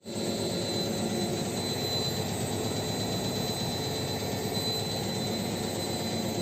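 Bosch washing machine spinning at high speed: the drum and universal motor run steadily with a thin high whine over the noise. The motor is running on freshly replaced carbon brushes.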